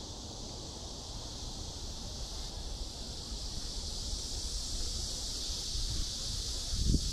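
Outdoor walking ambience: wind rumble on the microphone under a steady high-pitched hiss that grows slightly louder toward the end. A single low thump comes near the end.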